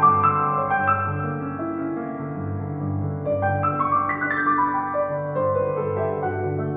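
Piano-led music with a steady low bass pulse.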